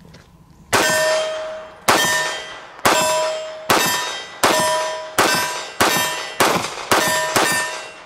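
TriStar T-100 9mm pistol fired ten times, about one shot a second, quickening toward the end. Each shot is followed by a ringing clang of struck steel that dies away before the next.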